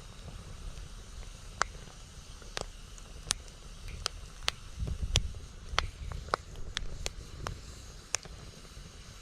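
Wood campfire crackling, with about a dozen sharp, irregular pops from the burning wood. Strong wind rumbles low underneath, swelling in a gust around the middle.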